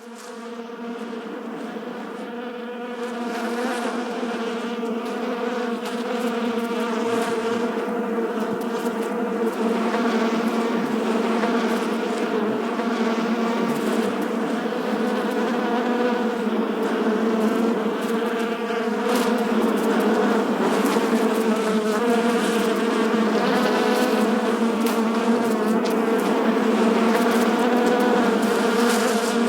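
A beehive full of honeybees, a dense, continuous buzzing hum with a steady low drone and many overtones. It fades in over the first few seconds and then holds steady.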